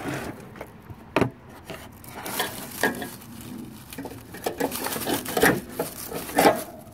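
Small metal tool clinking and scraping against the riding mower's deck bracket as a cotter pin is pried out, with a sharp metal click about a second in and dry leaves rustling.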